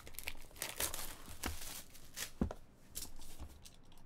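Trading-card packaging and cards being handled: irregular crinkling and tearing rustles, with a sharp click about two and a half seconds in.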